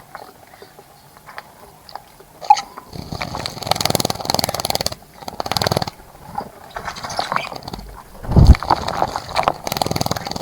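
A bird bathing in a bird bath: several bursts of rapid wing-fluttering and splashing water, each lasting one to two seconds, with a sudden loud low thump near the end.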